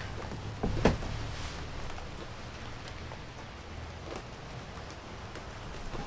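Steady low background hum with a single sharp knock about a second in, preceded by a fainter one, and a few faint ticks afterwards.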